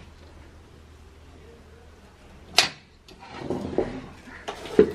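A steel karahi being lifted off a clay wood-fired stove with a cloth: a sharp metal clank about halfway through, then scraping and knocking of metal against the stove.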